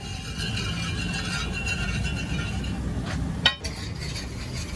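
Metal utensils clinking at a street-food stall: one sharp clink with a brief ring about three and a half seconds in, over a steady low background noise.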